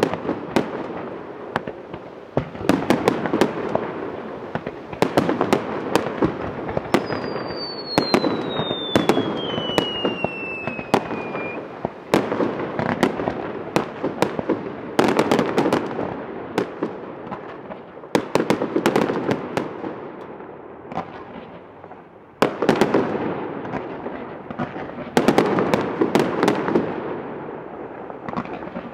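Fireworks display: many sharp bangs of bursting shells over a dense crackle, coming in waves. Around seven seconds in, a long high whistle falls steadily in pitch for about four seconds.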